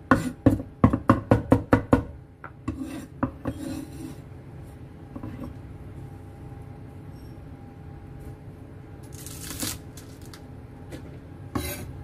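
Cleaver chopping garlic on a wooden cutting board, quick knocks about four or five a second for the first two seconds, then the blade scraping the mince across the board and into a bowl, with two short scrapes near the end.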